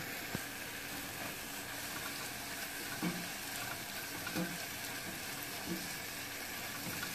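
Sliced red onions sautéing in butter in a small saucepan, giving a quiet, steady sizzle, with a few soft taps and scrapes of a silicone spatula stirring them.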